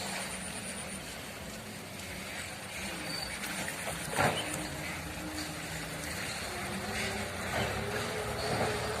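A motor engine drones steadily in the background, its pitch slowly rising near the end, with one short sharp knock about four seconds in.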